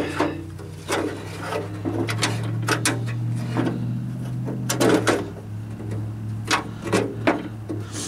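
Metal door latch and its linkage rods clicking, knocking and scraping against the sheet-metal of a Jeep Wrangler YJ half door as the latch is worked by hand back into the door cavity: irregular clicks over a steady low hum.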